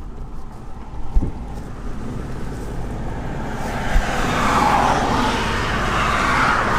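Road noise from a moving car: a steady low engine and tyre rumble with a couple of short knocks, the rushing noise growing louder about halfway through.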